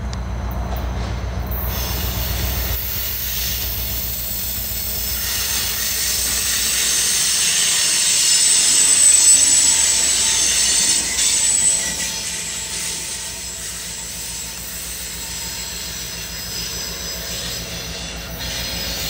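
CSX diesel-electric locomotive 6400 and its slug rolling past at low speed, the diesel engine running under a high-pitched wheel squeal. The sound is loudest about nine seconds in as the locomotive passes, then fades.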